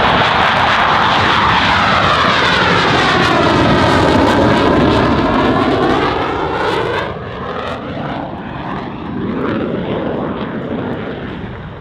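Jet noise from US Navy Blue Angels F/A-18 Hornets making a low pass. The rushing noise is loud for about seven seconds and sweeps down and back up in pitch as the jets go by, then drops and fades away.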